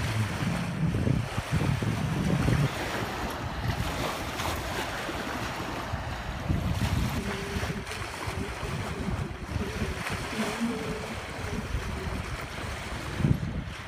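Small waves washing onto a sandy lake shore, with wind buffeting the microphone in gusts that are strongest in the first few seconds.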